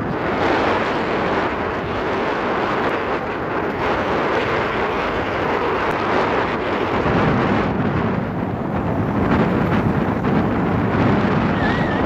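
Steady wind rumble buffeting the microphone while riding an e-bike at speed, growing deeper and heavier from about seven seconds in.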